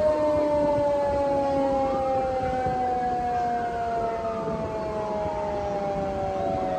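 Fire siren slowly winding down in pitch, with a second siren tone rising and falling over it through the middle. A low vehicle rumble runs beneath.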